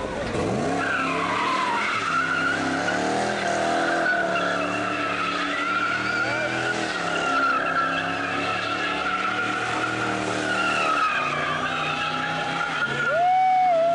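Chevrolet Corvette C4's V8 held at high revs while the rear tyres spin and squeal in a smoky burnout doughnut. The squeal is a steady, wavering high tone over the engine. The sound gets louder near the end.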